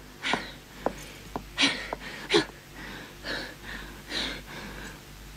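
A woman's heavy breathing: about five noisy breaths, roughly a second apart, with a couple of light clicks between them.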